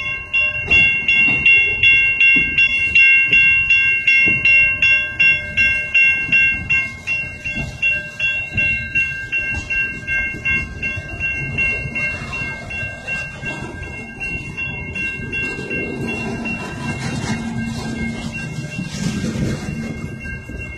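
Railroad grade crossing signal bell ringing in rapid, even strikes over the low rumble of coal hopper cars rolling past on the rails. The bell fades after about seven seconds, leaving the rolling and rumbling of the passing freight cars.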